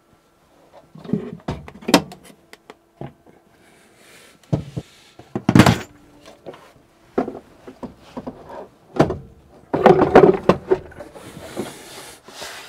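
The 19 kg metal case of a Victron MultiPlus inverter/charger being manoeuvred into a wooden locker: a series of irregular knocks, thuds and scrapes, the loudest about halfway through and a busy cluster of them about ten seconds in.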